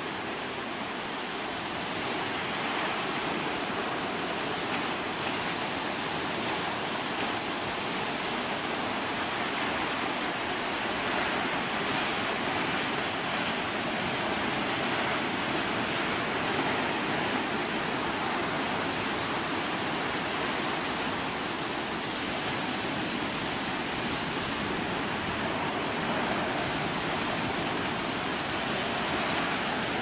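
Ocean surf breaking on the shore: a steady rushing hiss of wave wash, with no separate crashes standing out.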